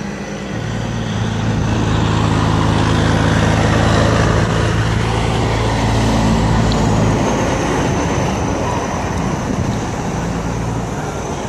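A motor vehicle passing close by: a low engine hum and tyre noise swell to a peak a few seconds in, then fade.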